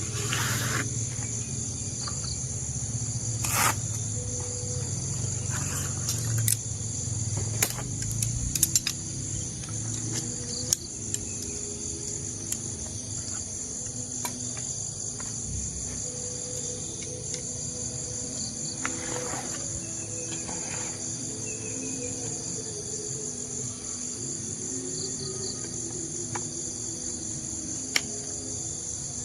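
A steady, high-pitched chirring of forest insects such as crickets runs throughout. Scattered sharp clicks and knocks come through, mostly in the first half.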